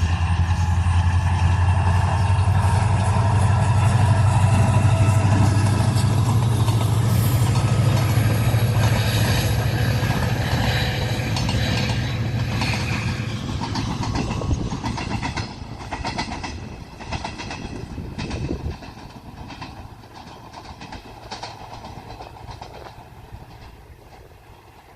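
Seohae Geumbit G-train passenger train running past at speed, with a steady low rumble and wheels clacking over the rail joints. The sound fades as it moves away: the low rumble drops off about three quarters of the way through, and the clacks trail off after it.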